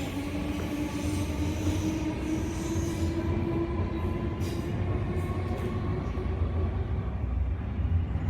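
Merseyrail electric train running, with a steady low rumble and a motor whine rising slowly in pitch as the train gathers speed.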